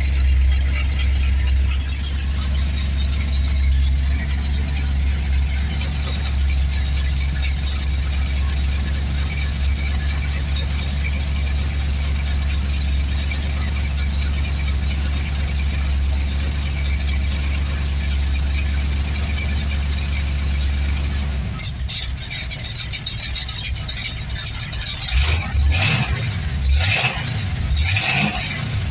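Chevrolet Nova engine idling cold just after starting, freshly tuned with new spark plugs, cap, rotor and an MSD billet distributor, and holding its idle. About three-quarters of the way through the steady low drone drops away and uneven surges follow near the end.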